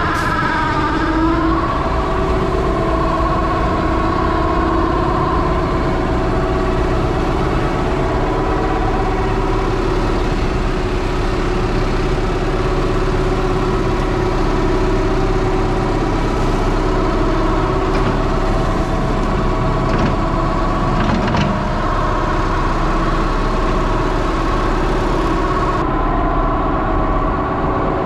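John Deere 6630's six-cylinder diesel running under steady load, driving a feed mixer wagon's auger through the PTO. Its pitch climbs briefly at the start, then holds steady.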